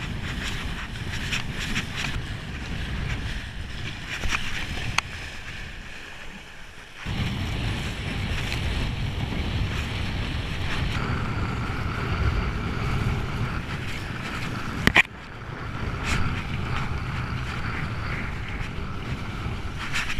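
Wind buffeting the microphone and water spray hissing as a kiteboard planes across choppy water. The rush eases briefly about six seconds in, and there is one sharp knock about fifteen seconds in.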